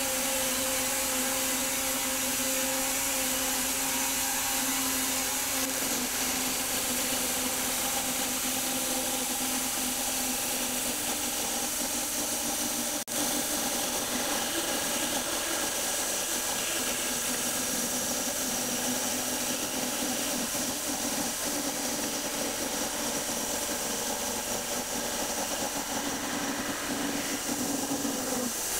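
Homemade bandsaw mill driven by an electric motor, running steadily under load as its blade cuts across a wide stack of elm cants. A steady mechanical hum whose pitch shifts slightly about 6 and 11 seconds in, with one sharp click about 13 seconds in.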